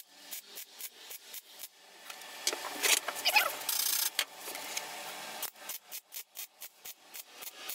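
MIG welder stitch-welding a thin steel patch panel into car bodywork: a quick series of short crackling arc bursts, several a second, with a longer crackling run of about two seconds in the middle.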